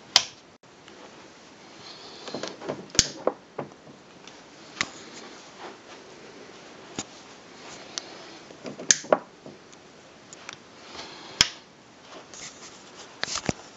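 Handling noise: a steady faint hiss with scattered sharp clicks and light rustles at irregular intervals, the loudest just after the start and at about 3, 9 and 11 seconds in.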